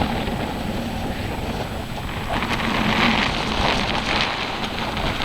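Wind rumbling on the microphone over the hiss of ocean surf; the surf's wash swells about two seconds in.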